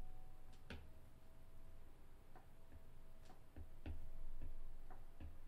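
A stylus tapping and clicking on a tablet screen during handwriting: irregular light taps, with a few more together around the middle. A faint steady tone runs underneath.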